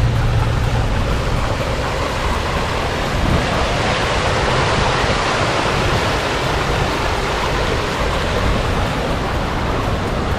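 Artificial waterfall: a steady rush of falling, splashing water.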